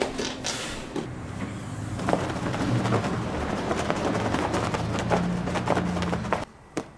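Cotton cloths being shaken out by hand: a series of short flapping snaps over a steady low outdoor rumble, which cuts off suddenly near the end.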